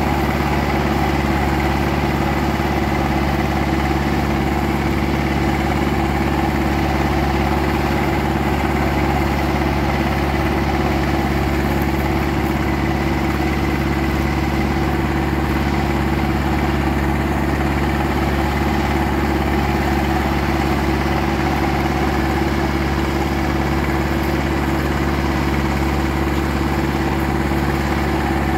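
Zetor 7340 Turbo tractor's four-cylinder turbo diesel engine running steadily at constant speed, as when pulling a plough, with no change in pitch or level.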